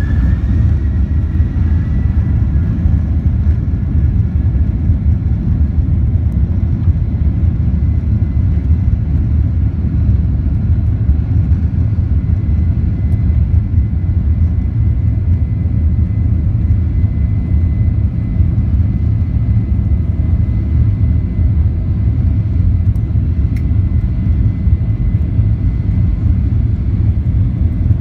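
Boeing 737-900ER's CFM56-7B jet engine at takeoff thrust during the takeoff roll, heard from inside the cabin: a loud, steady rumble with a high fan whine that finishes rising in pitch about two seconds in and then holds steady.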